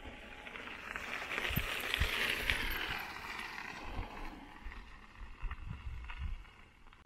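Footsteps of a hiker walking on a dirt trail, dull thuds at an uneven pace, with a hiss that swells about a second in and fades again by the middle.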